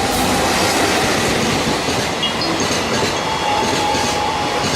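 A train running along the station track, its wheels on the rails making a loud, steady noise. A faint thin squeal comes in about three seconds in.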